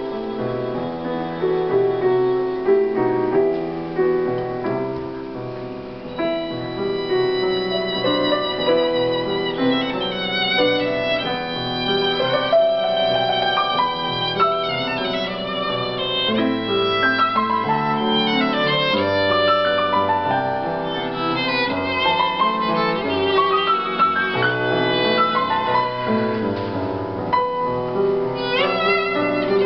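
Violin playing a melody with vibrato and sliding notes over grand piano accompaniment, a live violin-and-piano duo.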